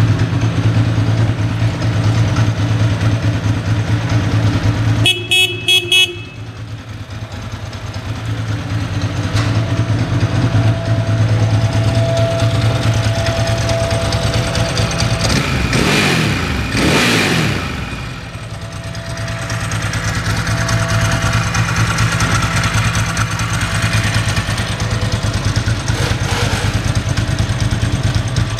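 A 1999 Ducati ST4's V-twin engine idling steadily, with the horn sounded in a quick run of short beeps about five seconds in. The engine note changes briefly in pitch past the middle, then settles back to idle.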